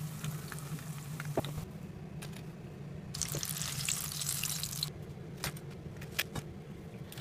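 Chilli bajji (batter-coated banana peppers) frying in hot oil: a faint fizzing sizzle that comes in two stretches, with a few sharp clicks in the later part.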